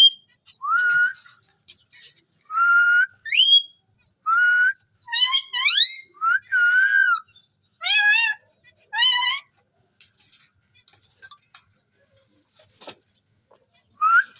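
Ringneck parrot whistling a series of short notes, several sweeping sharply upward. Between about five and nine seconds in come a few harsher, raspier calls, then it falls quiet.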